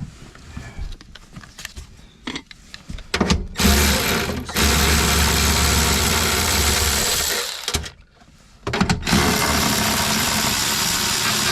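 Power drill running in two long bursts of about four seconds each, with a short pause between, backing out the bolts that hold a truck's power inverter in place. Light handling clicks come before it.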